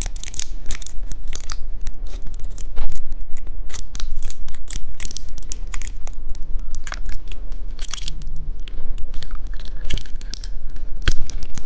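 Plastic candy packaging being handled and torn open close to the microphone: a quick run of sharp crackles, rustles and clicks.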